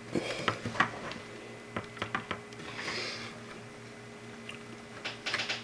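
Light clicks and scrapes of header pins being pushed into the contacts of a plastic solderless breadboard as fingers press and handle the small board. The clicks come in small clusters near the start, about two seconds in and near the end, over a faint steady hum.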